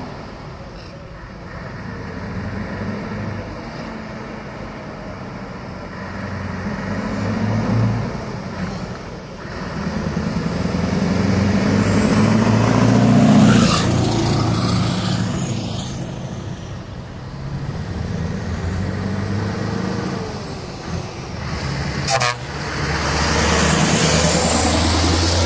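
Scania trucks driving past close by, the first a red bonneted Scania T500 pulling a trailer: diesel engine running, growing louder as it approaches and dropping in pitch as it passes. A truck horn toots as the first passes, about halfway through, and again near the end as a second truck goes by.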